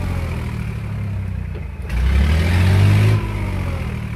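Heavy off-road truck's engine running hard in the mud, revving up about two seconds in for roughly a second, then dropping back.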